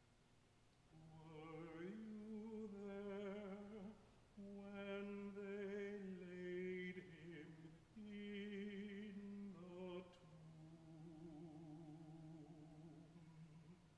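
A solo male voice singing slowly in long, held notes with vibrato. Short breaks for breath split the phrases, and the last, quieter phrase fades out near the end.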